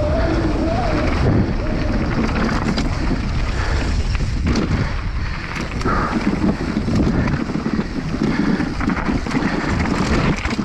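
Wind buffeting the microphone over the steady rumble and rattle of a downhill mountain bike running over rough ground, with many short clicks and knocks.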